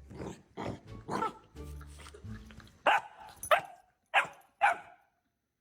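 Golden retriever barking in a series of short, sharp barks, the four loudest coming close together in the second half before the barking stops.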